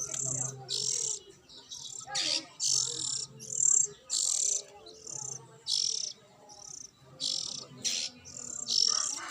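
Lovebirds calling: a string of short, high, raspy chirps, a little more than one a second at an uneven pace.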